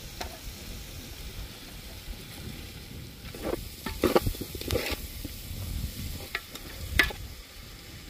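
A pot of francolin and sandgrouse cooking in very little water, sizzling steadily while a utensil is stirred in it. There are a few knocks and scrapes against the pot from about halfway through, and a sharper knock near the end.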